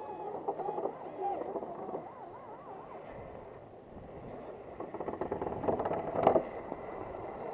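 Axial SCX10 radio-controlled scale crawler's electric motor and gear train whining, the pitch wavering up and down with the throttle. About five seconds in comes a rapid clicking clatter of drivetrain and tyres working over rock, loudest just after six seconds as the truck climbs close by.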